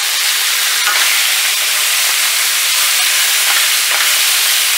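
Goat meat cubes sizzling with a steady hiss as they sear in hot sunflower oil and curry powder in a stainless steel pan, stirred with a wooden spoon, with a few faint scrapes.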